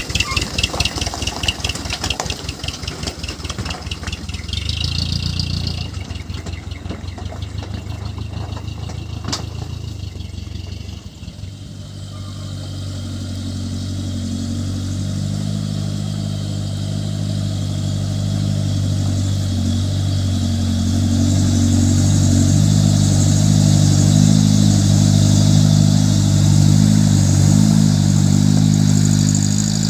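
Dump truck's diesel engine chugging at low revs, then from about twelve seconds in revving up and holding at steady higher revs, growing louder.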